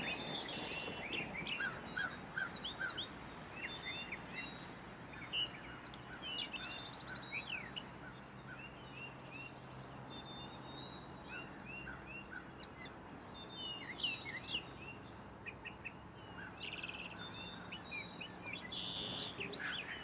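Several songbirds singing and calling, with many short chirps and whistles overlapping throughout, over a faint steady low hum.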